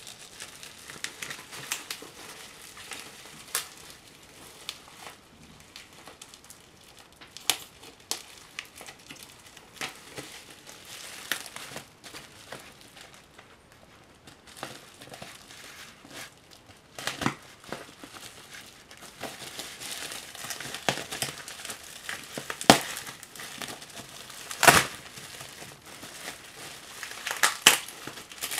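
Plastic bubble wrap crinkling and rustling as it is handled and unwrapped from a boxed model, with louder sharp crackles now and then, mostly in the second half.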